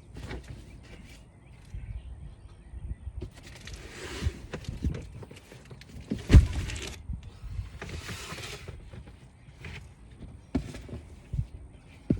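Hands-on handling noises from reassembling the rear lift door's latch and trim: scattered knocks and clicks, a few brief rustling scrapes, and one loud knock about six seconds in.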